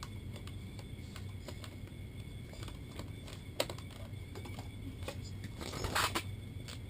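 Small clicks and knocks of plastic airsoft rifle parts being handled and fitted together, with a sharper click about three and a half seconds in and a brief rustle near the end, over a low steady hum.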